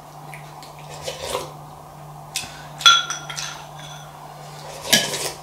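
Ceramic soup spoon clinking against a ceramic bowl while eating soup: a few short ringing clinks, the loudest about three seconds in and near the end.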